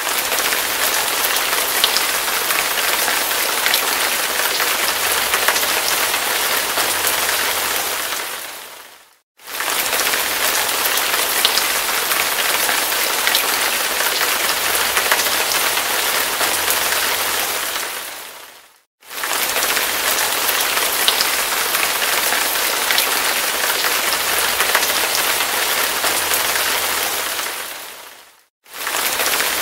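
Hard rain falling in a steady, dense hiss. Three times it fades out over about a second into a brief silence and then starts again abruptly, at roughly nine-and-a-half-second intervals.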